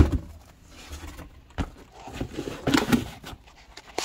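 Packaging being handled as an RC truck is pulled out of its cardboard box and styrofoam insert: a sharp knock at the start, then scattered bumps, rustles and scrapes.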